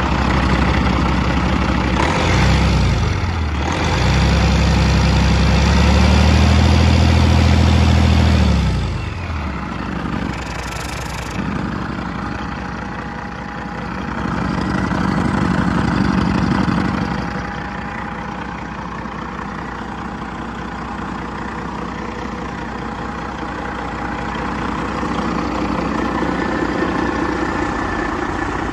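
Warm Detroit Diesel Series 60 12.7-litre inline-six diesel running on an engine stand. It idles, picks up speed briefly about two seconds in and again from about four to nine seconds, then drops back to idle. A milder swell comes around fifteen seconds before it settles into a steady idle.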